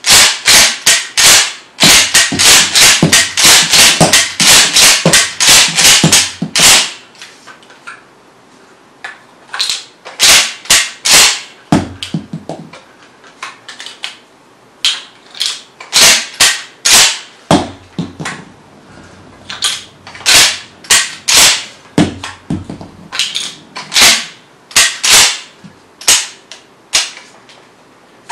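Mossberg 500 pump-action shotgun being racked and dry-fired over and over: sharp metallic clacks of the slide and trigger clicks, in a fast run for the first seven seconds, then in shorter groups after a pause.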